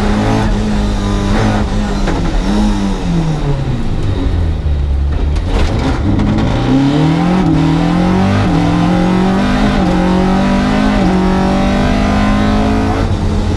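Historic rally car's engine heard from inside the cabin. It drops in pitch as the car slows, about five seconds in. Then it accelerates up through the gears, the pitch rising and then falling at each upshift, and settles to a steady note in top gear near the end.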